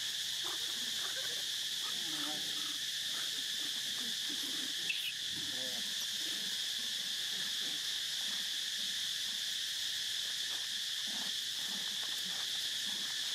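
Steady high-pitched insect chorus droning without a break, with a single sharp click about five seconds in.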